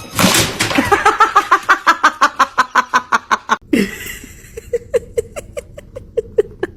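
Laughter-like giggling: a fast, even run of short pitched pulses, about five a second. It breaks off abruptly, and then comes a lower, sparser run of short rising pulses.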